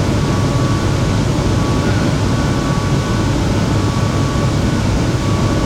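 Shenzhen Metro Line 14 train running, heard from inside the car: a steady low rumble with a faint, even whine held above it.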